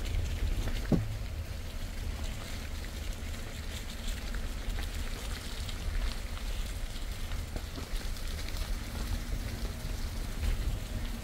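Steady rain falling on forest foliage, with fine drop ticks, over a low rumble of wind on the microphone. A single sharp knock about a second in.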